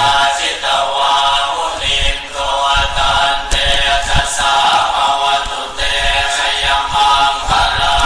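Vocal music: singing voices in continuous phrases, with no speech over them.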